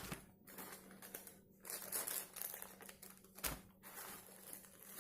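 Accessory packaging crinkling in irregular spells as it is handled, with a single light knock about three and a half seconds in.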